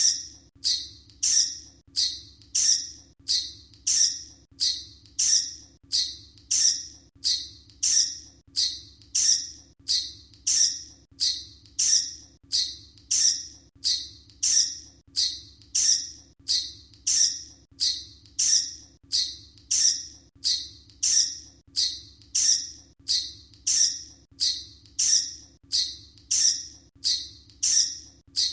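Bat squeaks, high-pitched and short, repeating at an even pace of about three every two seconds over a faint steady low hum.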